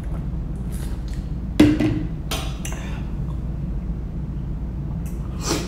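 A plastic drink bottle set down on the countertop with one sharp knock about a second and a half in, over a steady low hum, followed by a few short breathy hisses.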